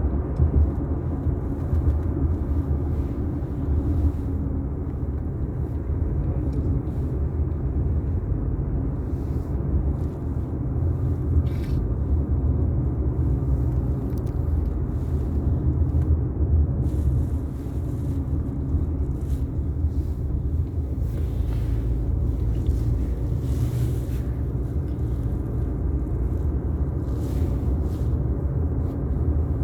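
Car driving, with a steady low road rumble throughout.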